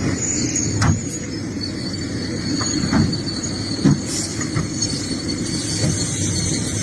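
Excavator working: a steady low engine rumble with a thin, high metallic squeal and a few sharp knocks.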